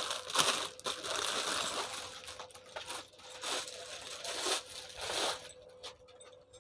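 Crinkling and rustling of plastic packaging as packaged webbing belts are handled. It dies down after about five and a half seconds.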